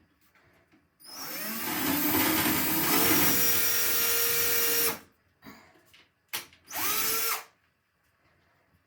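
Power drill boring a pilot hole into a wall. It runs for about four seconds, the motor's pitch rising as it spins up and then holding steady, then gives one short second burst about a second and a half later.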